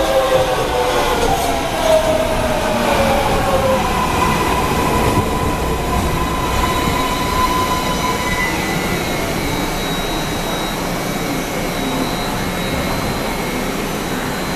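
MARTA rapid-transit train braking into an underground station: a whine from the traction motors falls in pitch over the first few seconds as it slows, over wheel-on-rail rumble. A steady high tone follows as the train comes to a stop.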